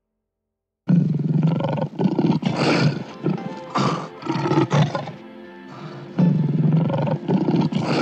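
Lion roaring in a run of loud calls beginning about a second in, with a quieter spell midway.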